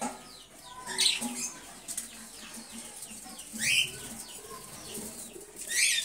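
A flock of budgerigars chattering, with several loud, sharp rising calls standing out from the low twittering.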